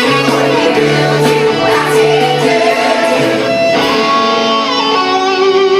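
A live band playing a pop song: guitar chords with held sung notes, changing chord about four seconds in.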